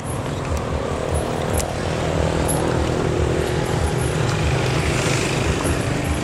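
A motor vehicle's engine running as it goes past, its note dropping gradually, over a steady pulsing low rumble.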